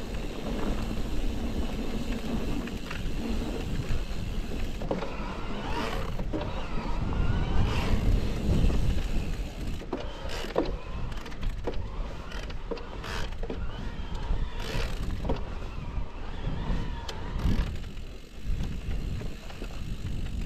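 Electric mountain bike ridden over rough trail: a steady rumble of tyres and wind with many short rattles and knocks from the bike.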